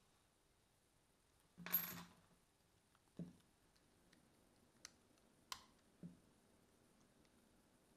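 Small metal parts of a Daiwa 7HT baitcasting reel's handle assembly clicking and clattering as they are handled while a bushing is fitted to the handle shaft: one short metallic rattle about two seconds in, the loudest, then four light clicks and taps.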